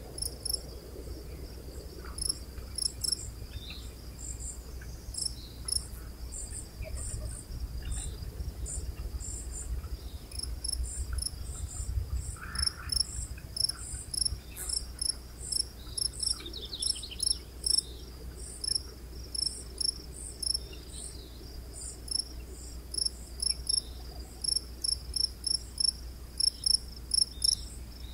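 Crickets chirping in short, high-pitched pulses. The pulses come in irregular groups at first and settle into a steady run of about two to three a second near the end, over a low steady rumble.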